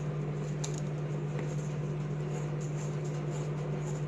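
A steady low machine hum over a faint even hiss, with a couple of faint light ticks.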